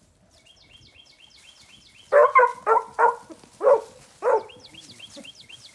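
Beagle hound barking about six times in short, loud chops. Before and after the barks, a songbird sings a rapid series of high, downward-slurred notes.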